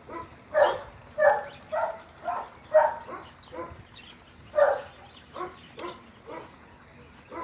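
A dog barking in a run of short, sharp barks, about two a second for the first three seconds, one more loud bark a little past the middle, then fainter barks toward the end.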